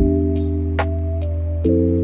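Background music: held synth chords over a deep bass, with a kick drum at the start and light ticking percussion; the chord changes near the end.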